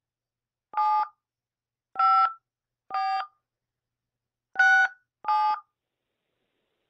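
Touch-tone (DTMF) keypad tones from a Skype dial pad: five short two-note beeps at uneven intervals, keying the digits 7-5-4-6-7 to spell a surname into an automated phone directory.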